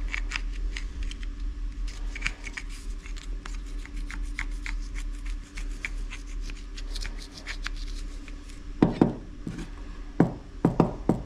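Screwdriver scraping and clicking inside a metal engine breather pipe, loosening caked carbon and old oil deposits that clog it. Several sharp knocks near the end as the pipe is tapped end-down on the bench to shake the debris out.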